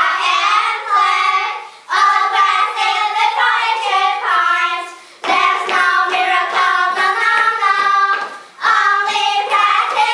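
A small group of young girls singing a cheer song together, loudly, in phrases of about two seconds with short breaks between them. From about halfway, a steady beat of short thumps runs under the singing.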